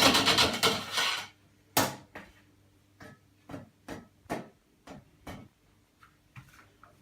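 A short rattling, rustling noise in the first second, then a string of separate light clicks and knocks, about two a second, as a hot pizza and kitchen things are handled.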